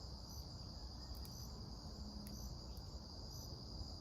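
Crickets chirping: a steady high-pitched trill with a shorter, higher chirp repeating about once a second. A few faint clicks come through, as the multitool is handled.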